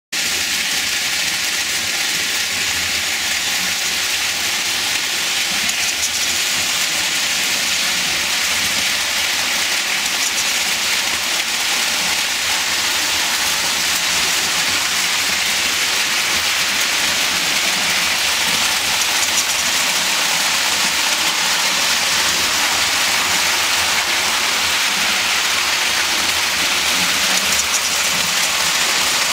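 Lionel O-gauge electric toy train running on three-rail track: a steady, even rushing noise.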